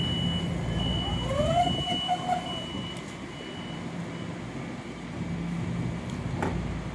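Metro-North M7A commuter car's doors closing: a steady high warning tone sounds for about four seconds while the doors slide shut with a short rising whine, over the car's steady low hum. A single sharp click comes near the end as the train starts to move off.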